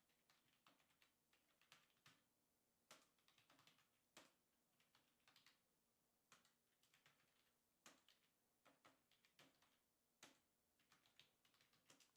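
Faint, irregular clicks of typing on a computer keyboard, otherwise near silence.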